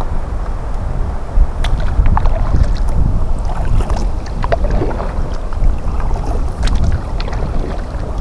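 Wind buffeting the microphone as a steady low rumble, with scattered sharp clicks and knocks from about a second and a half in.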